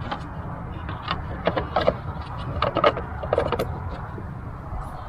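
Irregular light clicks, clunks and short metallic rattles, some with a brief ring, from parts being handled and poked at on a Jeep XJ.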